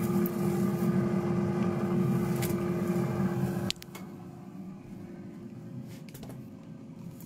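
Air fryer running with a steady fan hum and a held tone, cutting off abruptly a little under four seconds in, leaving a quieter background hum. A few sharp clicks and knocks are heard around the cut and later.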